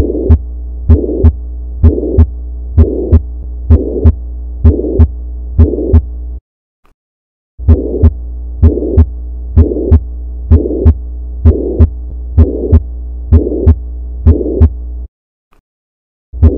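Heart sounds recorded through an electronic stethoscope: paired lub-dub beats about once a second, with a systolic murmur filling the gap between the first and second heart sounds, typical of a leaking mitral or tricuspid valve. A steady low hum lies underneath. The recording breaks off briefly about six seconds in and again near the end.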